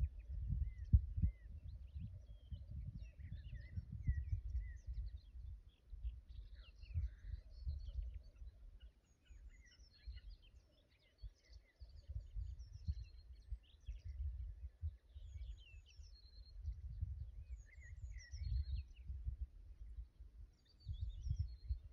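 Low, uneven rumble of wind on the microphone, the loudest sound, with faint scattered chirps of small birds behind it.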